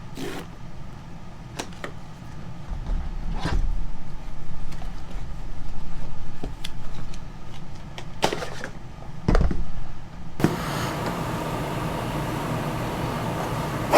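Packaging being handled as a GoPro box is opened: scattered clicks, knocks and rustles over a steady low rumble. A steady hiss comes in about ten seconds in.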